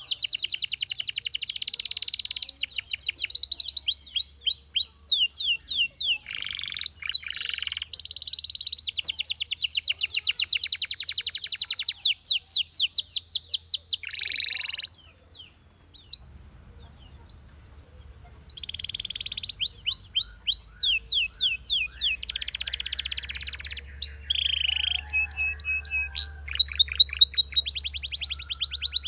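Belgian canary singing: fast trills of rapidly repeated sweeping notes that change speed and pitch from phrase to phrase. The song breaks off for a few seconds about halfway through, then resumes.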